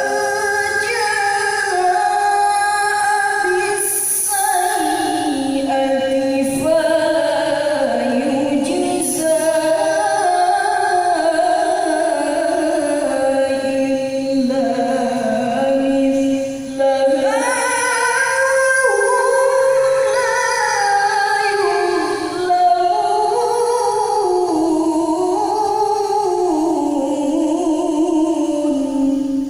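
A woman reciting the Quran in melodic tilawah style: a single voice carrying long, ornamented held notes that glide up and down, with short breaks for breath.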